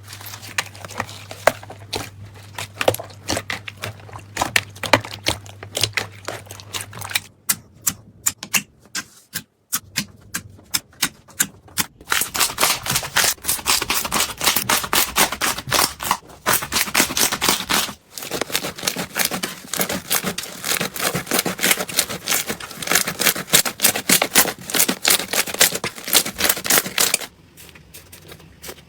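Slime being squeezed and pressed by hand, giving rapid crackling and popping clicks. It thins out to scattered pops for a few seconds, then turns to a dense crackle that stops briefly once and falls away near the end.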